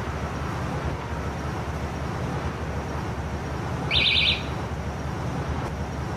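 Steady outdoor street and traffic noise, with one brief burst of rapid high chirps about four seconds in.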